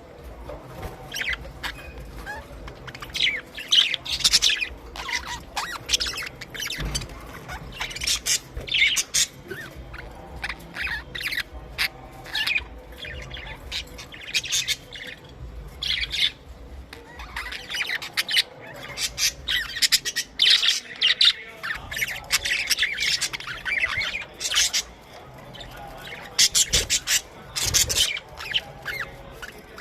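A flock of budgerigars chattering and squawking: many short, high chirps and warbles overlapping throughout, with a low hum underneath.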